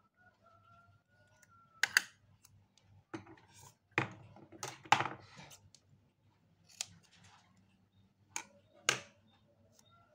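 A roll of Hansaplast adhesive tape being handled and strips peeled off it: a scatter of sharp clicks and short crackling rips, the loudest about two, five and nine seconds in.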